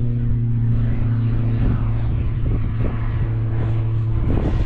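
A propeller plane droning steadily overhead: a strong low hum with a few fainter steady tones above it. A few short cracks break in at about two, three and four seconds in.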